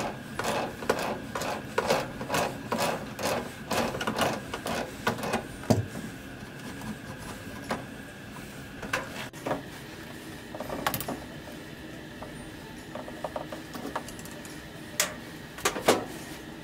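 Pliers working a threaded water-hose fitting loose at a washing machine's inlet: a quick run of metallic clicking and scraping, about three strokes a second, for the first six seconds, then a few scattered clicks and knocks.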